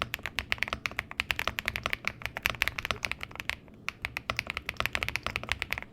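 Fast typing on an MCHOSE MC-G75-8 (G75 Pro) mechanical keyboard, close-miked: a dense run of key strokes, with a short pause about three and a half seconds in.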